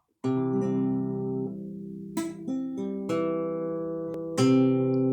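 Acoustic guitar (violão) chords strummed and left to ring, four strums in all: the first about a quarter second in, then new chords near two, three and four and a half seconds, as the player tries out chords to find the key.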